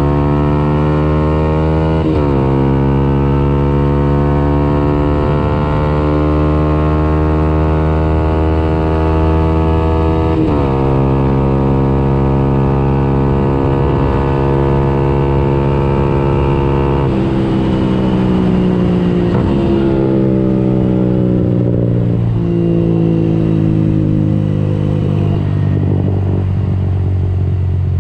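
Yamaha YZF-R 125's single-cylinder four-stroke engine through a Radical Racing exhaust with the dB-killer removed, accelerating through the gears. The pitch climbs slowly in each gear and drops sharply at upshifts about two, ten and seventeen seconds in. After that it falls and rises unevenly as the throttle is eased and reopened.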